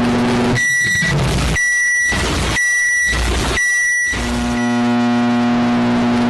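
Microwave oven's steady running hum. About half a second in, four short high beeps about a second apart replace it, and the hum comes back about a second after the last beep.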